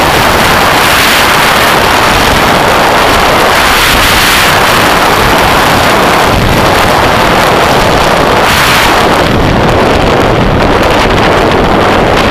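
Loud, steady wind noise on the microphone of a motorcycle on the move, with the bike's running mixed in underneath.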